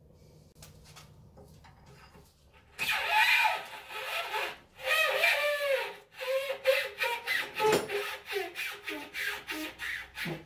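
Metal-on-metal screeching as the rear trunnion of a Classic Mini subframe is worked off its pin with a bar. Two long, wavering squeals start about three seconds in, then shorter squeaks repeat about three times a second; it is "worse than a blackboard with the nails going down it".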